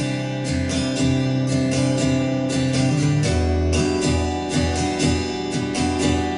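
Background music: acoustic guitar strumming chords in a steady rhythm, without singing.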